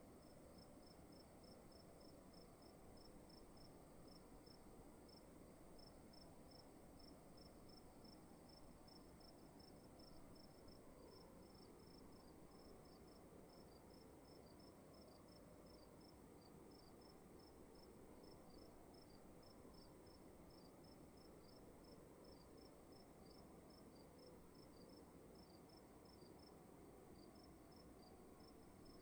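Faint crickets chirping in a steady, even rhythm of a few chirps a second, over a constant high-pitched whine and a low hiss of room tone.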